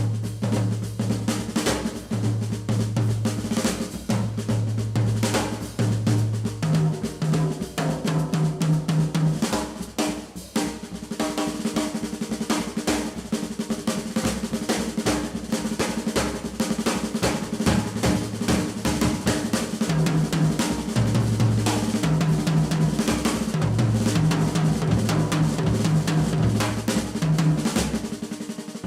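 Jazz drum kit played as the featured instrument: fast snare-drum rolls and rimshots with bass drum, over a run of repeated low notes.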